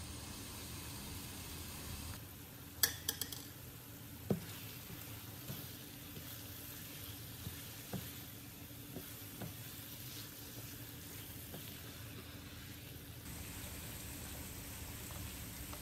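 Chicken livers in masala sizzling and frying in a nonstick pan as they are stirred with a silicone spatula. A quick run of sharp clicks about three seconds in and a louder knock a second later, then lighter scattered taps of the spatula against the pan.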